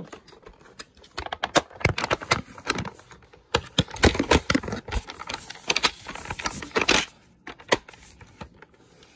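Handling noise on the recording camera as it is grabbed, swung and covered: a dense run of irregular clicks, knocks and rubs for several seconds, thinning to a few scattered clicks near the end.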